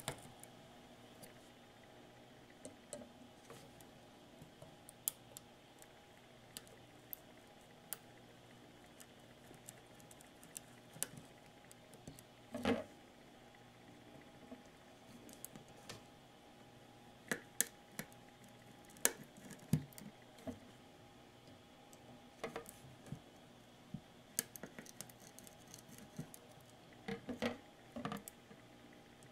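Scattered sharp clicks and light taps of metal needle-nose pliers and a handled circuit board as electrolytic capacitors are twisted off it, the loudest a knock about halfway through and a quick cluster near the end, over a faint steady hum.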